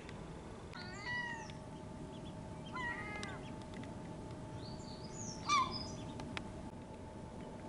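Three short, clear, wavering animal calls about two seconds apart, the last the loudest, with faint high peeps around them.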